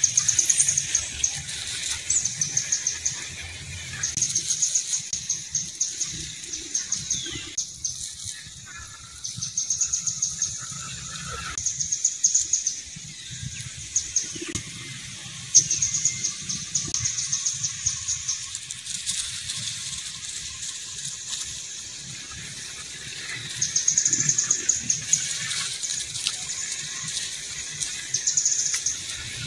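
High-pitched, rapid chirping trills in repeated bursts of one to two seconds, coming every few seconds, over a low rumble.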